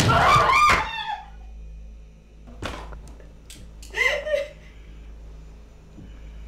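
A woman crying out as she struggles: a loud high cry at the start that dies away within about a second, a short sharp sound near the middle, and another shorter cry about four seconds in.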